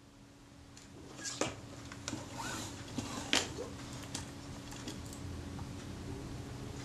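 Handling noise from servicing a Rolleiflex Automat TLR: metal tools and the camera body are set down and moved about, giving a few sharp clicks and knocks, loudest about one and a half seconds and three seconds in. A faint steady hum runs underneath.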